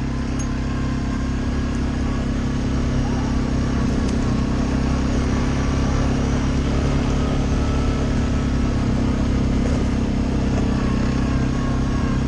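Suzuki ATV engine running at a steady speed while riding along a dirt trail.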